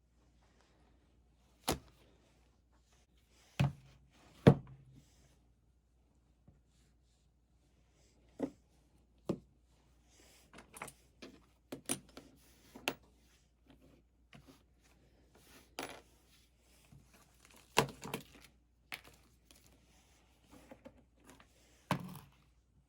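Irregular knocks and clicks of small objects being picked up and set down on a work surface, with some light rattling. A sharper knock about four and a half seconds in is the loudest.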